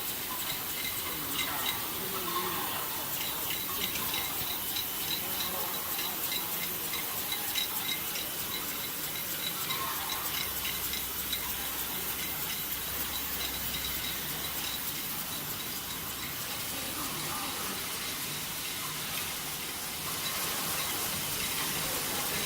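Automatic high-speed cap assembly machine running, a steady hiss with a quick, even clicking throughout.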